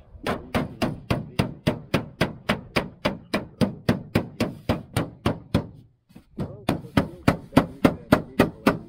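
Hammer tapping rapidly along the folded edge of a sheet-metal roofing panel, about three to four blows a second. The blows stop briefly about six seconds in, then resume at the same pace.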